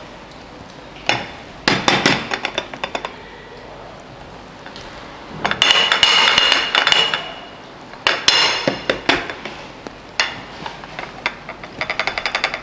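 Upturned glass ramekin knocking and clinking against a ceramic plate as it is tapped to release a baked caramel flan. The knocks come in short clusters of rapid clicks with pauses between, and one longer ringing rattle of glass on the plate in the middle.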